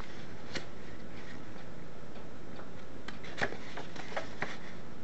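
Pages of a small paper owner's manual being turned and flicked, a few light, irregular paper ticks over a steady low hum.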